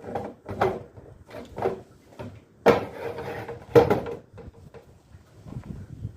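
Irregular knocks and clatter of parts and tools being handled, with two louder knocks about two and a half and about four seconds in.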